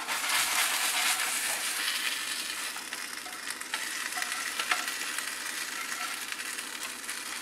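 Kefta patties sizzling in oil in a non-stick frying pan, the hiss slowly dying down, while a spatula scrapes and taps against the pan as the patties are slid out onto a plate. A sharp tap comes just under five seconds in.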